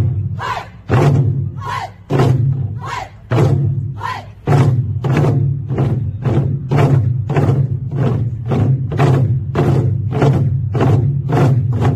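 Ensemble of Korean buk barrel drums struck with wooden sticks in unison: a few heavy, widely spaced strokes, then from about four and a half seconds a steady fast beat of about three strokes a second.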